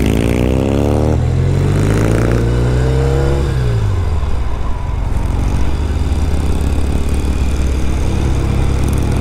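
Norton Commando parallel-twin motorcycle engine accelerating through the gears: the pitch rises, drops at a shift about a second in, rises again, then falls away after about three and a half seconds and settles into steady cruising.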